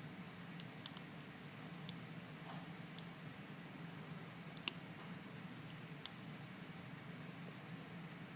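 Faint, sharp metallic clicks of a lock pick and tension wrench working the pins of a Lockwood 334M45 stainless steel padlock, about seven at irregular intervals, the loudest a little past halfway, over a steady low hum.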